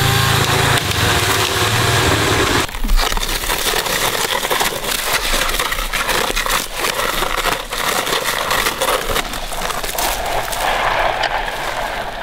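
Zipline cable being pulled off its reel, a dense run of crackling, scraping and clicking as the coils unwind. It is preceded by a small motor running steadily that cuts off abruptly a little under three seconds in.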